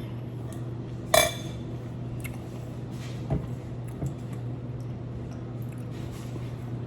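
A sharp, ringing clink of cutlery against a dish about a second in, then two softer knocks, over a steady low hum.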